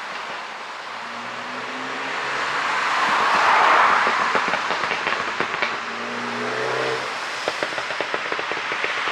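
BMW 530i's turbocharged four-cylinder engine revved twice, each time followed by rapid crackling and popping from the exhaust as the revs drop: the overrun pops and bangs of an ECU pop tune.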